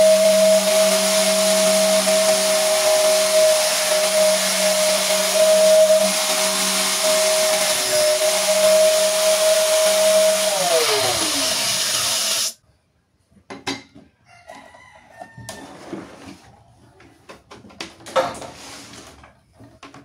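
Angle grinder running free with a steady high whine; about ten seconds in it is switched off and its pitch falls as the disc spins down, then it stops abruptly. Light clicks and knocks of handling follow.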